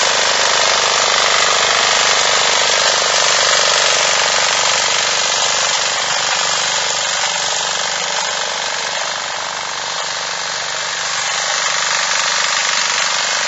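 Diesel walk-behind tiller running under load with a rapid, steady clatter as its rotating tines churn through the soil. It grows slightly quieter around ten seconds in.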